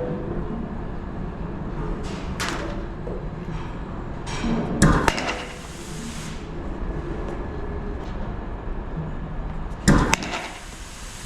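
High-speed batting-cage pitching machine cycling, with two loud sharp cracks about five seconds apart, each ringing briefly, over a steady low rumble. A shorter swishing burst comes a couple of seconds in.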